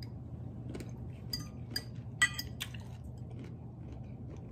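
Metal fork clinking and scraping against a ceramic plate while eating, a handful of light clinks with the loudest a little past two seconds in.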